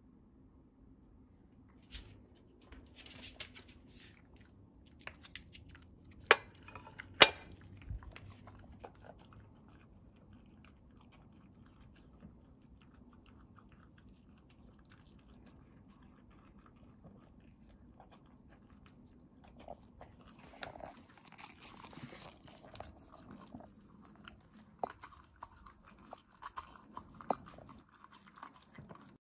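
Scottish terrier eating wet dog food from a ceramic bowl: wet chewing and licking, busiest in the last third. A few sharp knocks in the first eight seconds, the loudest two about six and seven seconds in.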